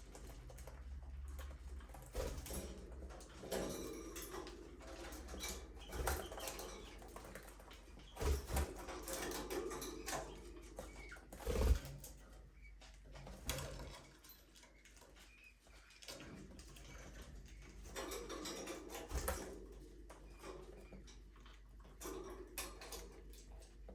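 Budgerigars chirping and chattering in short scattered calls, with occasional sharp taps and knocks, the loudest about halfway through.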